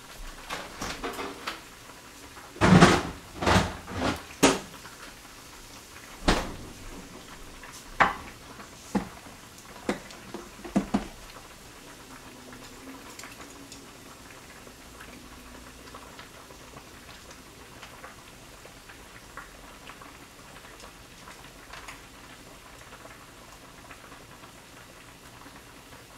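A clip-lid plastic kimchi container set down on the counter and opened, with a run of sharp knocks and clicks over the first eleven seconds, the loudest four close together about three to four and a half seconds in. After that, only faint light clinks as kimchi is picked out with chopsticks.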